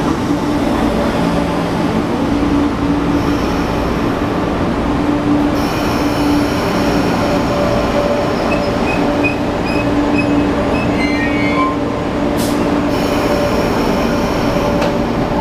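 MTR East Rail Line MLR (Metro-Cammell) electric train running slowly alongside the platform as it comes in to stop, with a steady motor hum and thin high wheel and brake squeal from about a third of the way in. A short hiss comes near the end.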